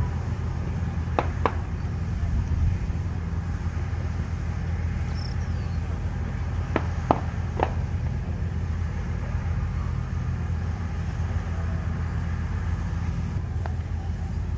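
Diesel engine of a heavy 8x8 military truck (the Caesar howitzer's carrier) idling steadily with a low hum, with a few faint clicks about a second in and again around seven seconds in.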